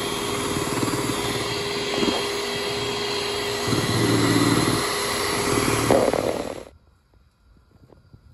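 Electric hand mixer running steadily, its beaters whipping eggs (beaten whites with the yolks being mixed in) in a metal bowl; it cuts off about six and a half seconds in.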